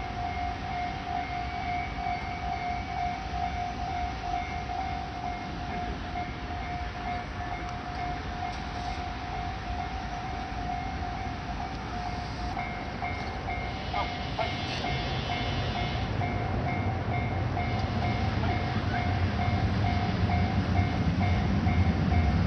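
Japanese level-crossing warning bell ringing on and on in an even, repeating electronic ding. In the last few seconds the low rumble of an approaching JR West 323 series electric train grows louder beneath it.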